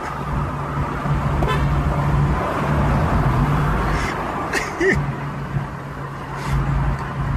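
Steady engine drone and road noise heard from inside a car driving along a highway, with a few brief higher-pitched sounds over it.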